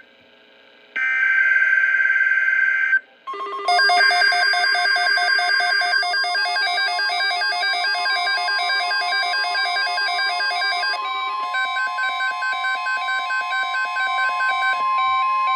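Emergency Alert System data burst, a buzzing two-tone digital squawk, about a second in, lasting two seconds. Then, from about three seconds in, a synthesized alert sound of layered, rapidly pulsing tones, with a steady tone near 1 kHz joining under the pulsing about halfway through.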